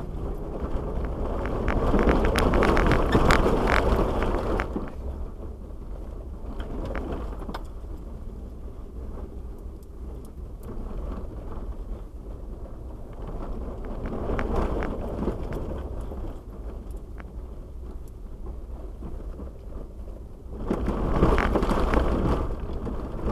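A Jeep Wrangler driving over an icy, puddled dirt trail, heard from inside the cabin. A steady low rumble runs throughout. Three spells of louder crunching and splashing come from the tyres breaking through ice and water: one at the start, a shorter one about halfway, and one near the end.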